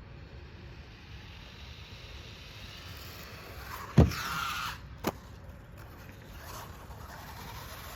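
Small electric RC monster truck landing with one loud thump about halfway through, its motor whining briefly after, then a second short knock about a second later.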